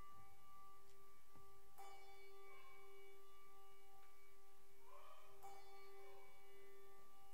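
Keyboard playing the soft opening of a postlude: a held note sustains throughout while new notes are struck about two seconds in and again about five and a half seconds in.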